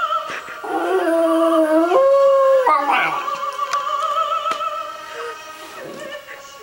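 A West Highland white terrier howling along to opera singing, its howls held as long notes; the dog falls quiet about halfway through while the singing carries on more softly.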